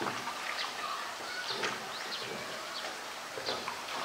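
Small birds chirping over and over in short, high notes, over a faint outdoor hiss.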